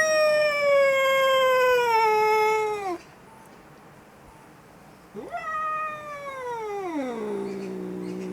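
Angry domestic cat yowling in two long drawn-out calls. The first slowly falls in pitch and cuts off about three seconds in. The second starts high about five seconds in and slides down into a low, held moan.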